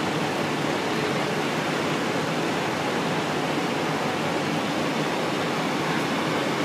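Steady, even rushing noise of fire apparatus diesel engines idling at the curb.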